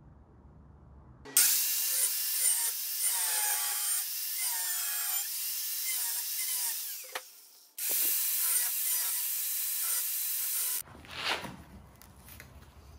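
Angle grinder with a cutoff wheel cutting through square steel tubing: a high whine over harsh grinding noise. It runs in two stretches, the first fading away about seven seconds in, the second starting and stopping abruptly, followed by a brief swish near the end.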